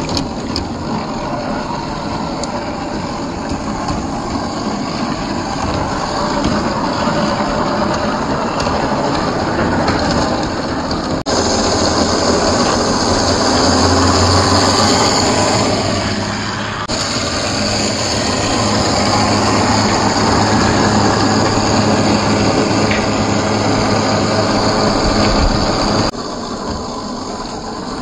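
RC scale crawler running over gravel and rock: the whine of its 540 45T brushed motor and geared drivetrain, with tyres crunching on the stones. The sound changes abruptly three times, about 11, 17 and 26 seconds in, and a steady low hum runs through the middle stretch.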